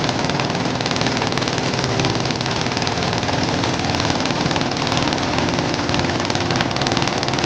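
Corn sheller driven by a Dongfeng single-cylinder diesel engine, running steadily while it strips kernels from the cobs: an engine drone under a dense, constant rattle.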